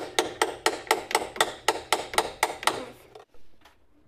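Hammer striking quickly and evenly, about four blows a second, stopping about three seconds in.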